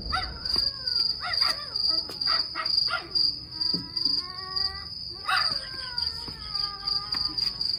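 Crickets trilling in one steady, high, pulsing tone that cuts off abruptly near the end, with several drawn-out, wavering, slowly falling calls underneath, one starting about five seconds in.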